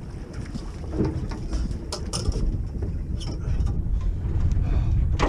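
Wind buffeting the microphone on an open boat at sea, a steady low rumble, with a few short sharp knocks and clicks about two, three and five seconds in.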